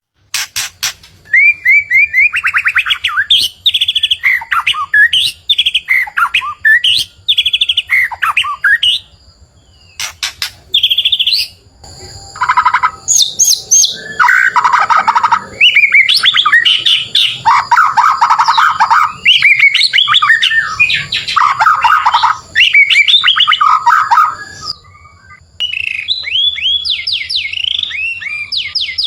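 White-rumped shama (murai batu) singing loudly: a long, varied song of rapid trills, sweeping whistles and chattering phrases, broken by a few short pauses.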